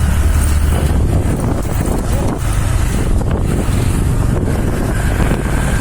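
Wind buffeting the microphone over the low rumble of a moving vehicle on a rough track; a steady low engine hum gives way to rougher, uneven rumbling about a second in.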